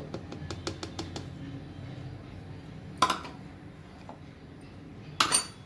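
A bowl knocked and tapped against a plastic mixer jar as flour is emptied into it. A run of light clicks comes in the first second or so, then two sharp knocks about two seconds apart.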